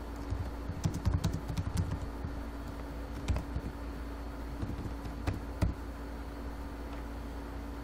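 Typing on a computer keyboard: a quick run of key clicks in the first two seconds, then a few single clicks further on, over a steady low hum.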